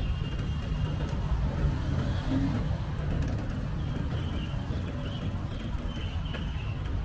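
Steady low rumble of wind and road noise from a moving bicycle ride, with faint high chirps in the second half.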